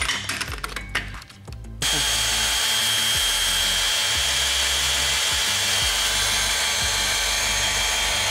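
A few knocks as the priming tool is seated, then about two seconds in a cordless drill starts and runs steadily with a thin whine. It spins a priming tool in the distributor hole that drives a big-block Chevy 454's oil pump, building oil pressure and filling the oiling system before first start.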